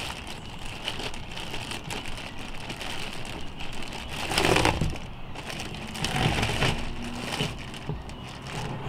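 A plastic bag crinkling and rustling as it is worked off a tripod, loudest about halfway through.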